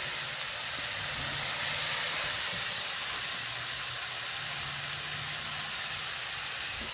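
Venison heart slices sizzling in oil in a cast iron skillet over a wood fire: a steady hiss.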